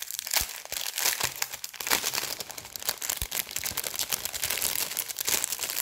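Plastic packaging crinkling and crackling as it is handled and pulled open, a dense run of crackles.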